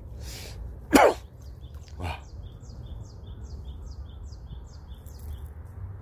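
A small bird calling a rapid run of short, high, even chirps, about three a second, starting about two seconds in and stopping near the end, over a steady low rumble.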